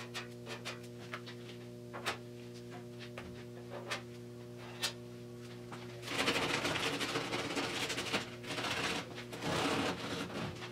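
Hand-sanding primer on a car body panel with sandpaper on a small block. At first there are scattered light taps and scrapes over a steady electrical hum. About six seconds in, rough, rhythmic rasping sanding strokes start and carry on.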